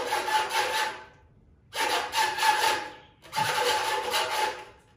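Edited sound effect of three noisy swishes, each about a second long with short gaps between.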